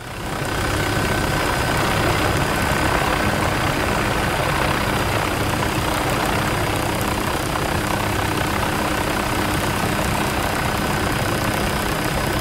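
Lava fountains erupting on Kīlauea's summit lava lake, making a steady, loud rumbling rush.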